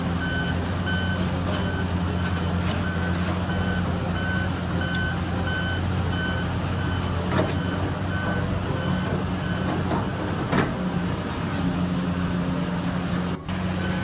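Diesel engine of heavy earthmoving machinery running steadily, with a backup alarm beeping over it until about eight seconds in. Two short metallic knocks come in the second half.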